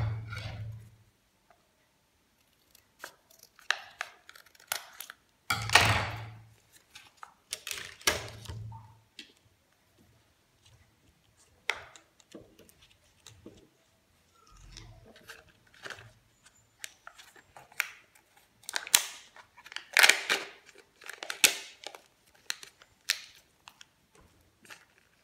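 Hands unwrapping and handling a plastic surprise-egg candy: a peeled foil lid, crinkling packaging and small plastic parts clicking. The sound comes as irregular crackles and sharp clicks, with a few dull knocks.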